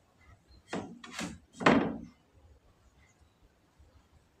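Three loud knocks about half a second apart, the third the loudest.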